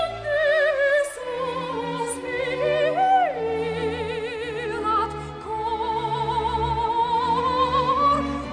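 Background music: an operatic voice singing with strong vibrato over an orchestra, holding long notes and gliding between them.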